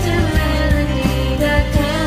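Young students singing a Christmas song in a choir over a backing track with bass and a steady beat.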